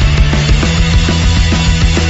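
Loud heavy rock intro music with a driving drum beat and distorted guitars.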